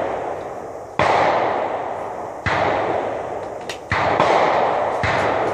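Four shots from a 10.5-inch 5.56 AR-pattern rifle, a second to a second and a half apart, each one ringing out and fading before the next.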